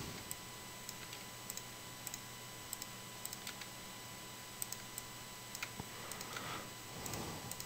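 Faint, scattered clicks of a computer mouse and keyboard as mesh edges are selected, over a low steady hum and hiss.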